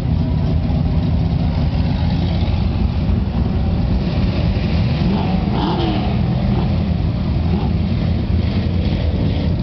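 Pickup truck engines running and revving through mud, a steady low rumble, with a brief rise and fall in pitch about halfway through.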